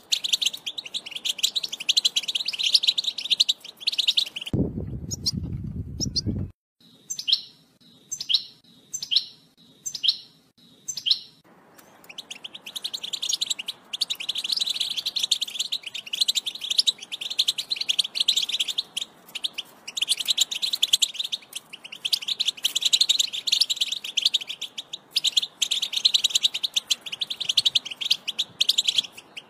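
European goldfinch singing a fast, continuous twittering song. About four seconds in the song stops for a low rumble lasting about two seconds. Then comes a run of about seven separate short call notes, spaced about half a second apart, before the twittering song resumes.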